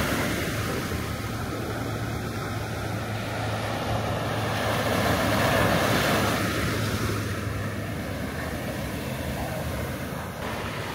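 Ocean surf: a steady rush of breaking waves that swells about halfway through and then eases.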